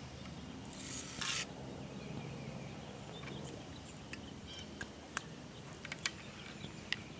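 Lead shot pouring from a shot snake's brass spout into its measuring cup, heard as a short rattling hiss about a second in. Several sharp, separate metallic clicks follow later on as the single charge is handled.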